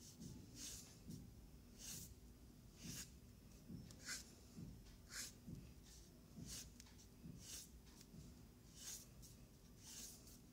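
Faint, scratchy strokes of a watercolour brush pen's tip swept quickly across card paper, one short stroke about every second.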